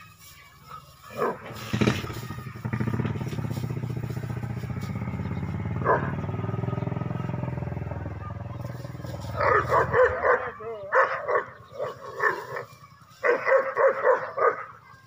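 A dog barking in rapid bursts of quick yaps, once starting about two thirds of the way in and again near the end. Before that, a steady engine drone fills the first half.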